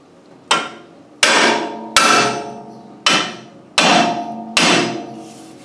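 Six hammer blows on steel, each ringing after the strike, driving the press-fit master pin into the link of a John Deere 350B dozer track. The pin goes in fairly tight but steadily.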